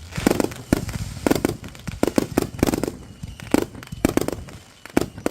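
Backyard consumer fireworks going off: an irregular run of sharp bangs and pops, about a dozen in a few seconds, some in quick pairs.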